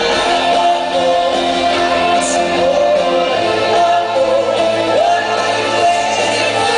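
Live rock band playing in a large hall: a lead singer's voice gliding over electric guitars, bass and drums, heard from out in the audience.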